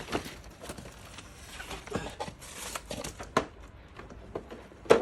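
Packaging crinkling and scattered light knocks as the contents of an opened shopping-trolley parcel are handled, with one louder knock near the end.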